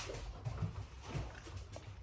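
Faint, scattered soft knocks and light taps of kitchen handling around a metal bowl, a few each second.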